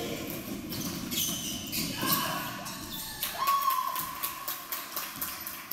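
Basketball game on a hardwood gym floor: a ball bouncing in repeated thuds, sneakers squeaking briefly about two seconds in and again over half a second soon after, in a large echoing gymnasium.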